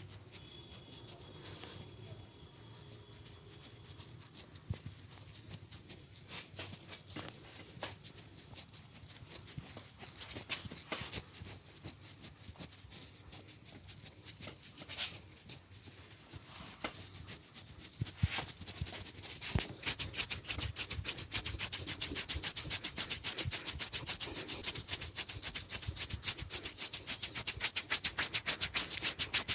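Hands rubbing and kneading over skin and hair during a massage, with scattered pats. Near the end the pats quicken into a fast, even run of rhythmic strikes.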